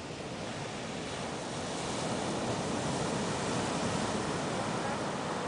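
Ocean surf: a wave breaking and washing up the sand, swelling louder over the first two seconds into a steady rushing hiss.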